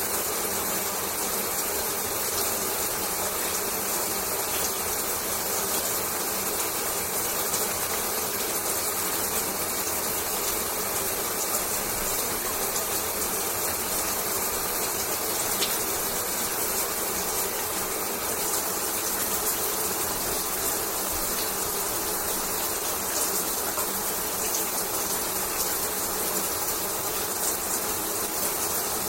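Shower spray running steadily: an even hiss of water with a fine crackle of drops, unchanging throughout.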